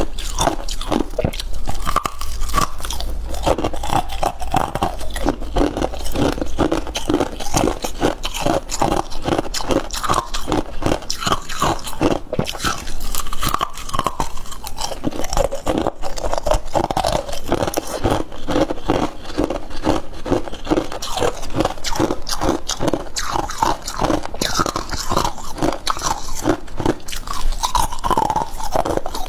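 Close-up chewing of crunchy freezer frost: rapid, continuous crunching as mouthfuls of frost are bitten and chewed.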